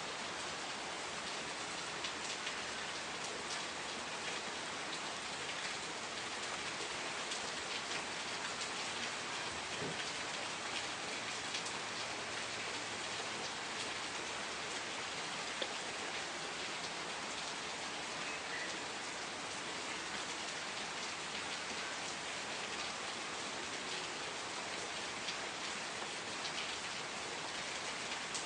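Steady rain, with the taps of individual drops ticking through it.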